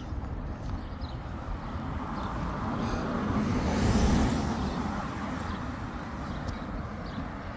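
A car driving past close by on a road, its tyre and engine noise swelling to a peak about four seconds in and then fading away.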